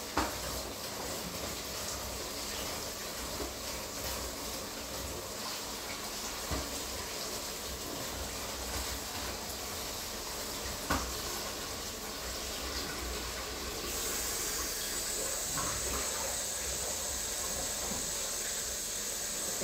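A steady hiss with a few faint knocks; the hiss turns brighter and sharper about fourteen seconds in.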